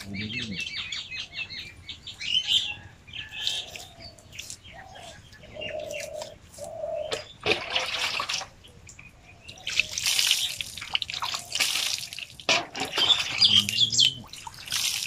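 Small birds chirping and calling, with three bursts of crisp rustling and snapping as fresh leafy greens are torn from their stems by hand, about halfway through and again near the end.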